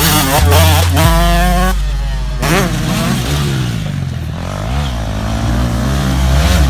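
Motocross dirt bike engines revving on the track, the pitch climbing and dropping again and again as the throttle opens and closes, with an abrupt change about two seconds in where one clip cuts to the next.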